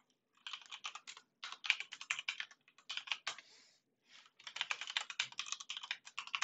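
Computer keyboard typing in four quick bursts with short pauses between them, the longest burst near the end.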